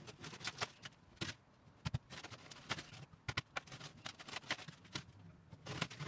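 Irregular scrapes, taps and rustles of hands working inside a countertop fridge opening, with several sharper knocks scattered through.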